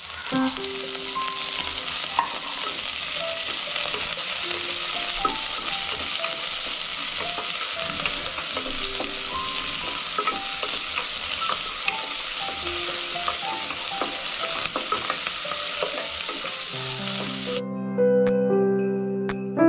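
Chopped onion and garlic sizzling in hot oil in a pot while being stirred with a wooden spoon. The sizzle cuts off suddenly near the end.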